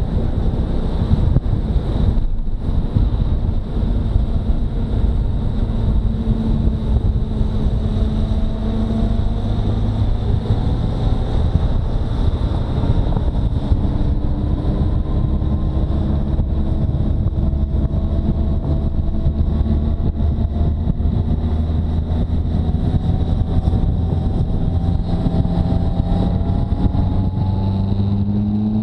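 Motorcycle engine under way, heard over heavy wind noise on the microphone; its pitch climbs slowly as the bike gathers speed.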